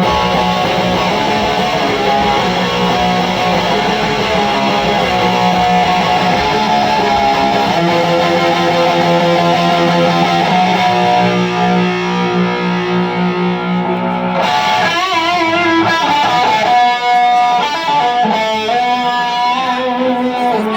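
Electric guitar played alone through an amplifier for a soundcheck: held, ringing chords for most of the passage, then wavering single notes in the last third.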